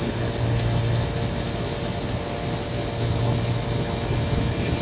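Steady engine-like machine noise, with a low hum that swells and fades every couple of seconds.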